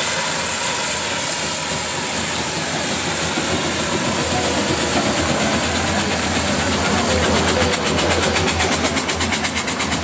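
Sentinel steam waggon letting off a steady hiss of steam. About seven seconds in, a fast, even beat of about five pulses a second sets in from its engine.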